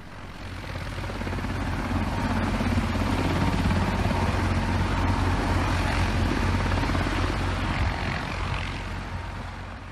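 Mil Mi-26 heavy-lift helicopter running on the ground, its two turboshaft engines and eight-bladed main rotor turning; the sound builds over the first couple of seconds, then holds steady.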